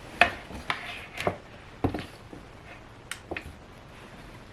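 Sharp clicks and knocks from a desk light being picked up, set down and adjusted, about seven in all, the loudest near the start and about two seconds in, with fainter ones after three seconds.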